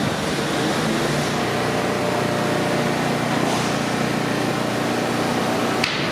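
Steady hum and rumble of a New York City subway train, with a single sharp click near the end.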